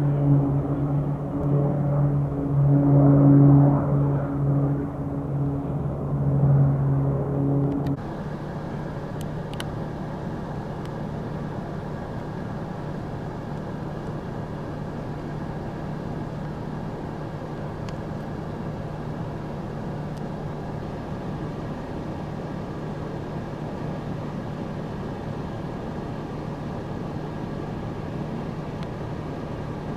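Propeller engines of a low-flying fixed-wing firefighting plane drone with a strong pitched tone, swelling and fading as it passes. About eight seconds in this cuts off suddenly to a quieter, steady engine hum with unchanging tones.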